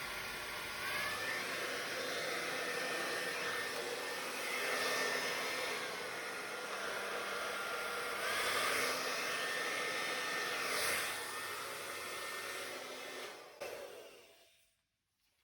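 Handheld hairdryer blowing on its coldest setting to push wet acrylic paint across a canvas. A steady rush of air with a thin whine that steps up and down in pitch a few times, then switches off about two seconds before the end.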